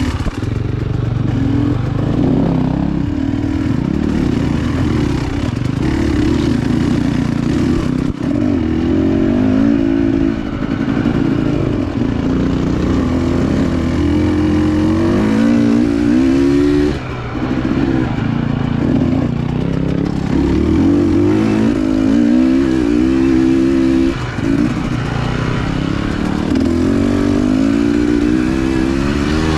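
Dirt bike engine being ridden, revving up and easing off again and again, its pitch climbing and dropping with the throttle. There are short lulls about 8, 17 and 24 seconds in.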